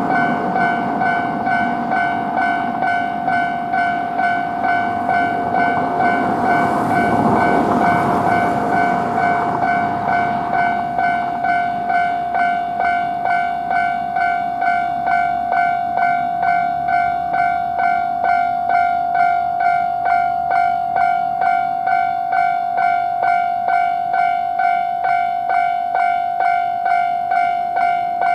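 Japanese railway level crossing's warning bell ringing its steady "kan-kan" ding, about twice a second. A train runs past the crossing during the first ten seconds or so, then fades, leaving the bell alone.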